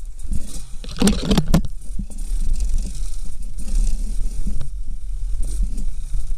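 Dirt bike engine running at low revs on a slow, rocky downhill, under frequent knocks and rattles of the bike jolting over stones. About a second in there is a loud scraping rush lasting about half a second.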